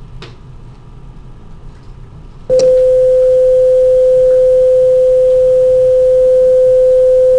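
A steady, mid-pitched electronic beep, a pure unwavering tone, switches on abruptly about two and a half seconds in and holds loud and level for about five seconds before cutting off suddenly. Before it there are only a few faint ticks.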